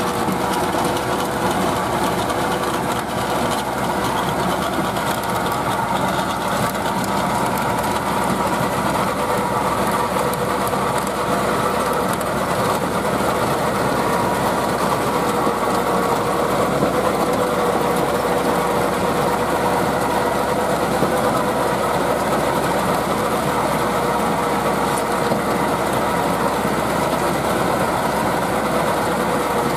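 Landini 8860 tractor's Perkins 4.1-litre four-cylinder diesel running steadily under load, driving a rear rotary tiller that churns through dry soil.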